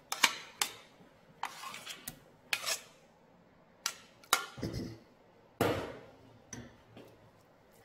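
Metal spoon scraping and clinking against a ceramic rice bowl while scooping glutinous rice paste into a stainless steel mixing bowl: a few separate clinks and knocks with quiet gaps between.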